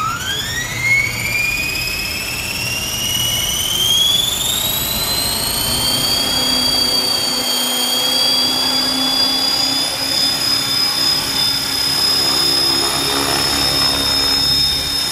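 450-size flybarless RC helicopter's 4000 kV brushless motor and rotors spooling up: a high whine rises steadily in pitch over the first five or six seconds, then holds steady as the rotor reaches flying speed.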